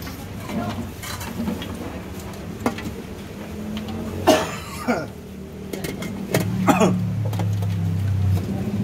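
Background noise at a street-food stall: a few short, sharp knocks and clatters over a low steady hum, which grows louder near the end like a passing engine.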